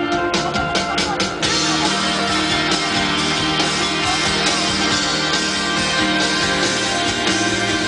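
A live rock band playing, led by strummed guitar, heard from among the audience. About a second and a half in the sound fills out in the treble and runs on fuller and denser.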